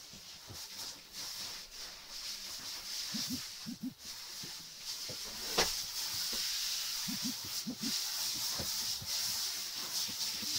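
Handheld shower head spraying water in a steady hiss, growing louder a few seconds in, with a few short squeaks in quick pairs.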